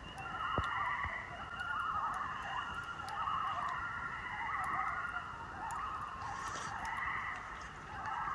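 Common loons giving wavering tremolo calls, one quavering call after another, with two birds at different pitches often overlapping.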